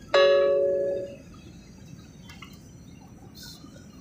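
Airliner cabin chime: a single chime sounds abruptly and rings for about a second as it fades, over faint steady cabin noise.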